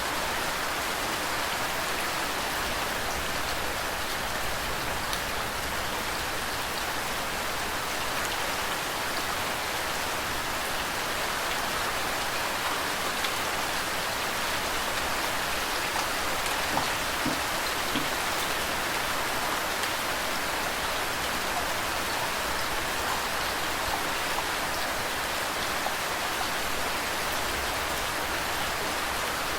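Steady, even rain falling, with faint scattered ticks of individual drops.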